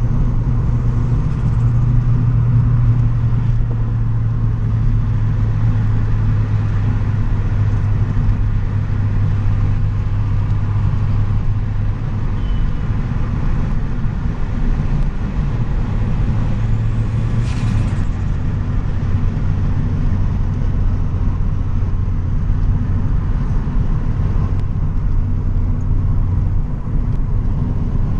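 Turbocharged Toyota Corolla's 4E-FE four-cylinder engine running steadily while driving, heard onboard, with its low note shifting down twice. A brief faint high whistle comes a little past the middle.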